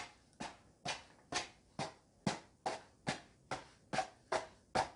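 Hands scratching and brushing a cardboard tissue box in a steady rhythm, a little over two strokes a second, each a quick scratchy swish that fades at once: an everyday object played as a foley instrument for a wind-like, scratching sound.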